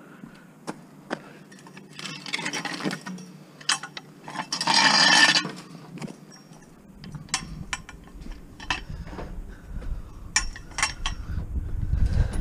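Scrap metal being handled and loaded onto a truck, with scattered metal clinks and knocks and two longer noisy rushes in the first half, the second the loudest. A low rumble builds from about halfway through.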